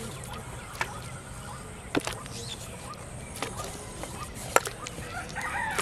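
A few sharp clicks and knocks as a steel bowl of fish bait is handled and worked by hand, over a low steady background. A chicken starts clucking near the end.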